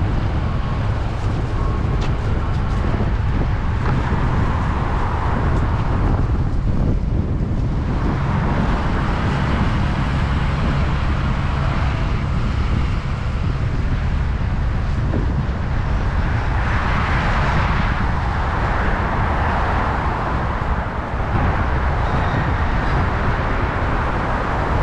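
Road traffic noise: a steady low rumble, with the hiss of passing vehicles swelling and fading twice, about a third of the way in and again past the middle.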